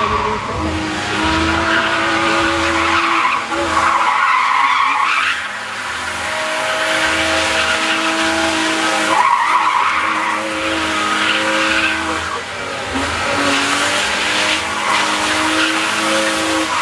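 BMW E36 3 Series sedan spinning its rear tyres in a smoky slide. The engine is held at high, steady revs while the tyres screech, the squeal swelling and easing every few seconds.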